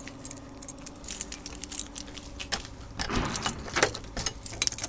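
A bunch of keys jangling, with many small metallic clicks. From about three seconds in, louder rattling and clunks as a key is worked in the front-door lock.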